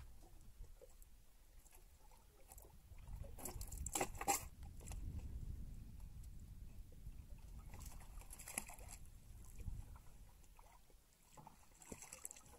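A fishing handline being hauled in by hand over the side of a small boat: a few brief rustling, splashing handling sounds over a low steady rumble, the clearest about four seconds in and again about halfway through.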